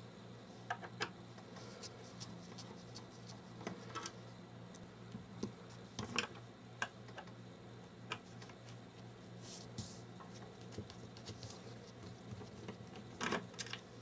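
Scattered light clicks and taps at irregular intervals, from a hand screwdriver backing out small screws and the screws and metal parts of a monitor's chassis being handled, over a faint steady low hum.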